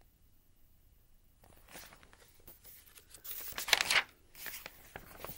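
Paper rustling as a large picture-book page is turned over, in a few swishes, loudest a little past the middle.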